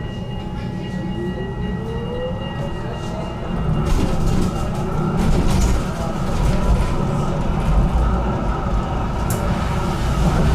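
HTM GTL8 tram in motion, heard from on board. A motor whine rises in pitch over the first few seconds as the tram accelerates, then the rumble of wheels on the rails grows louder from about four seconds in.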